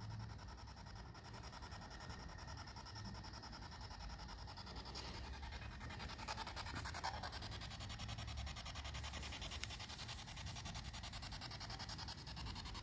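Handheld spirit box sweeping through radio frequencies, giving a faint, steady, rapidly chopped static hiss with no voice coming through.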